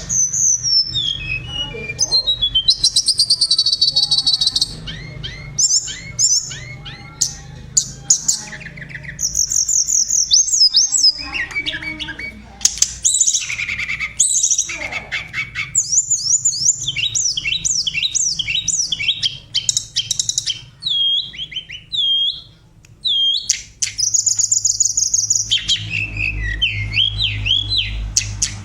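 Tledekan, a small flycatcher, singing a long varied song of high, quick whistled notes, rapid trills and sharp up-and-down slurs, broken by short pauses. A steady low hum runs underneath and grows a little louder near the end.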